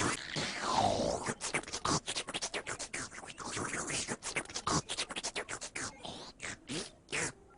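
A rapid run of scratching sounds: many short clicks mixed with quick rising and falling sweeps, with no steady beat.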